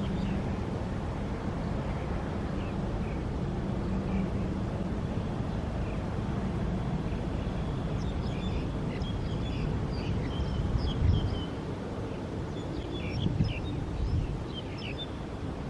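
Steady outdoor rumble with a low hum, small birds chirping from about halfway, and a few gusts of wind buffeting the microphone near the end.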